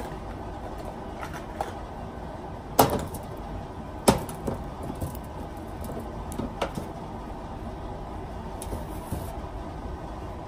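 A steady low rumbling noise, with two sharp knocks about three and four seconds in and a few lighter taps after.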